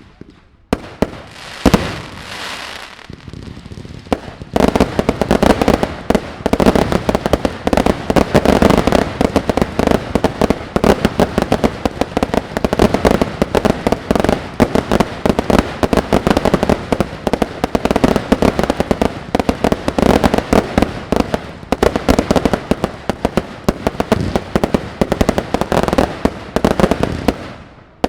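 Fireworks display: a few separate bangs, then from about four seconds in a dense, rapid barrage of bangs and crackles that drops away shortly before the end.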